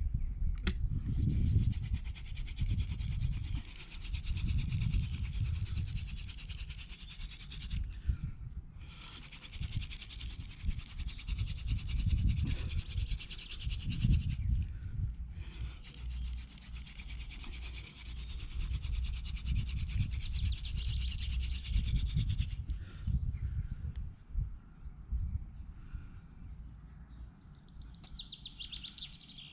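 Wooden hand-drill spindle twirled between the palms and grinding in the notch of a wooden hearth board: a steady dry rubbing, broken twice briefly, then dying away a few seconds before the end. This is friction fire-lighting, grinding out hot wood dust to form an ember. A bird chirps near the end.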